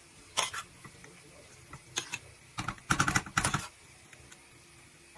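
Metal spoon clicking and scraping while meat sauce is scooped and spread onto lasagna sheets: a couple of single clicks, then a quick run of clicks and scrapes around the middle.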